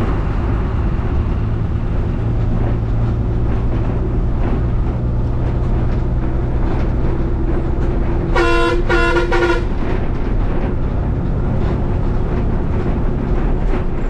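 Bus engine running steadily, heard from inside the cabin, with three short horn blasts in quick succession a little past the middle.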